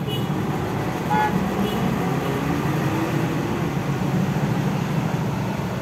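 Steady road and traffic noise from the ride, with a short horn-like toot about a second in.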